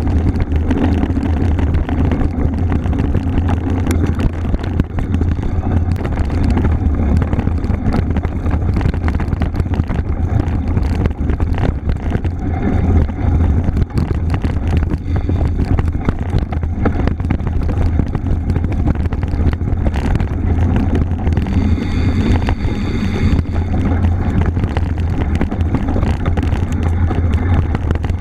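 Steady wind rumble buffeting a ride-mounted camera microphone on a bicycle moving off-road, with the hiss of tyres and the ride over the trail.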